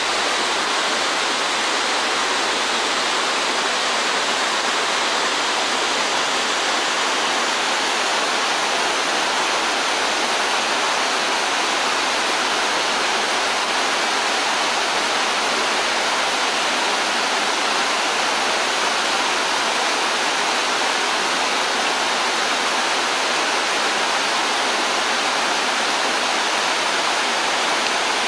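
A stream cascading down a small stone-walled fall into a pool: a steady, even rush of falling water.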